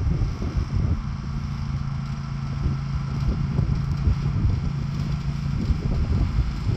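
Cub Cadet XT1 riding lawn mower's engine running at a steady speed as the tractor drives across the grass, a steady hum over an uneven low rumble.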